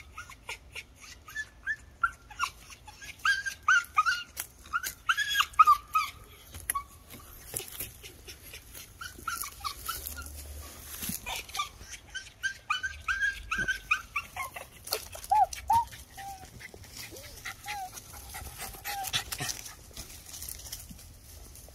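A dog whimpering in short, high-pitched cries that rise and fall, coming in quick runs with pauses between them, with scattered clicks and rustles.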